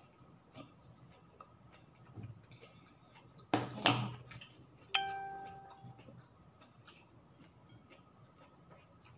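Tableware knocking at a dining table during a meal: a short loud clatter about three and a half seconds in, then a sharp clink that rings for about a second, over faint, irregular ticking clicks.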